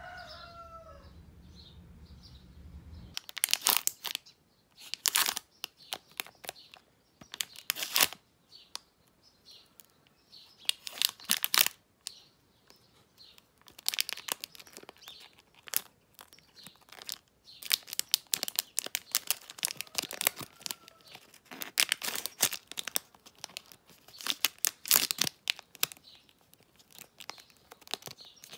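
A freshly sharpened woodturning chisel slicing through thin sheet material in a series of short tearing strokes with pauses between them, as a test of how sharp the edge is. The strokes begin about three seconds in.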